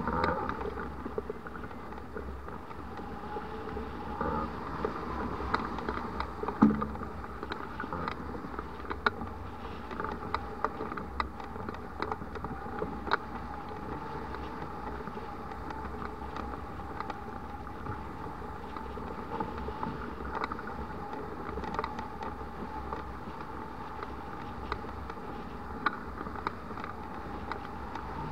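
Wind rushing over a camera mounted on a hang glider in flight: steady airflow noise with a low rumble and scattered sharp ticks, and one louder knock about six and a half seconds in.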